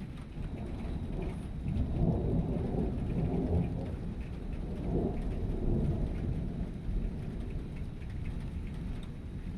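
Thunder rumbling in rolling swells over a steady patter of falling rain during a thunderstorm.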